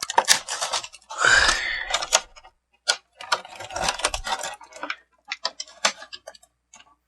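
Toy packaging being handled and opened: irregular crinkling with a run of clicks and taps, and a short rising squeak about a second in.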